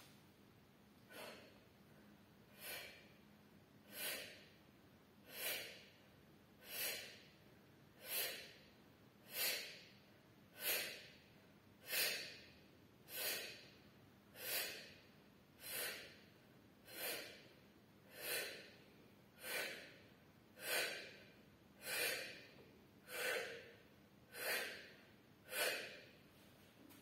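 A woman's short, forceful exhalations in a steady rhythm, about one every 1.3 seconds, one with each pull of an exercise band; the first few are softer.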